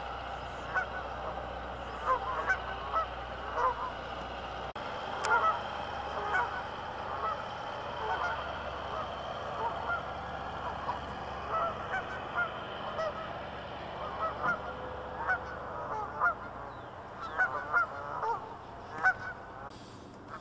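A flock of Canada geese honking, with many short calls overlapping and repeating throughout.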